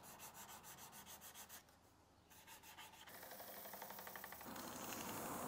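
Faint rubbing of a pad of 320-grit sandpaper, wet with oil finish, against a willow bowl on a wood lathe. There are quick, even strokes at first, a short lull about two seconds in, then a steadier, slightly louder rub from about three seconds on.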